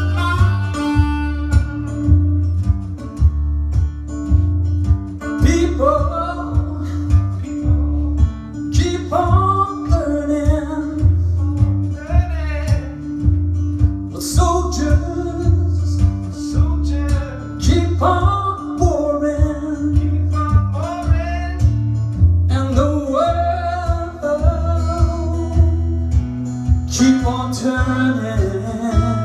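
Live acoustic guitar tuned down to drop D, playing a steady rhythm with strong low bass notes. Singing comes in about five seconds in and carries on over the guitar.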